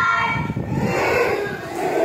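A group of young children's voices chanting and calling out together: a class singing the letter-sound drill and answering with the letter's sound.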